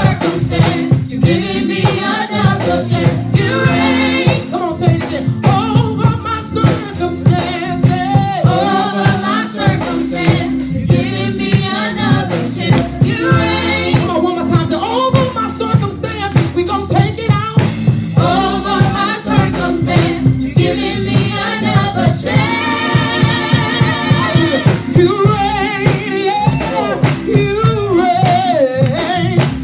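A small praise team singing a gospel song together into microphones over instrumental accompaniment with a steady beat.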